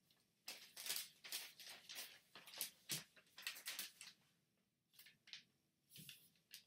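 A large sheet of origami paper rustling and crinkling as it is folded over and pressed flat. There is a quick run of short crinkles for the first few seconds, then a few isolated ones.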